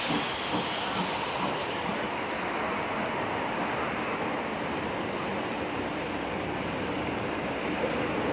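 Steam-hauled passenger train pulling out, its coaches rolling past on the rails with a steady, even noise.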